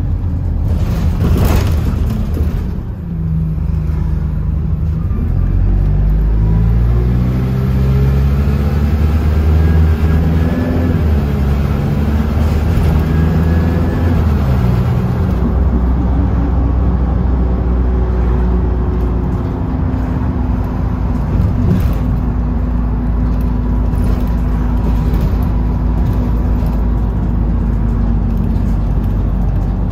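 Diesel bus engine heard from on board, pulling away with its pitch climbing in steps over the first half, then dropping back and running steadily. A single sharp knock sounds about a second and a half in.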